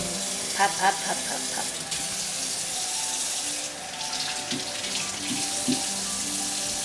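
Hot-air popcorn popper (Presto PopLite) running: its fan blowing hot air in a steady rush with a faint hum.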